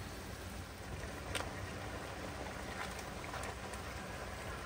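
A wok of crabs, squash and coconut milk simmering on the stove: a steady hiss and rumble, with a few light clicks as crab shells and chilies are set into the pan.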